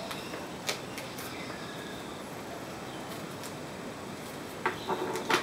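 Duct tape being pulled off the roll and wrapped around the soldered wires of an LED downlight: a few short tearing sounds over a steady low hiss, the loudest near the end.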